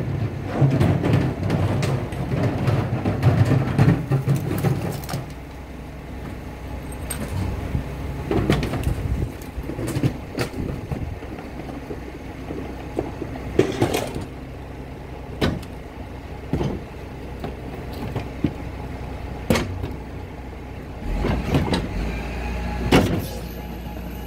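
Garbage truck's engine and hydraulic compactor running, loud for the first five seconds or so and then quieter, with sharp pops every second or few: diaper genie bags bursting as they are squeezed in the hopper.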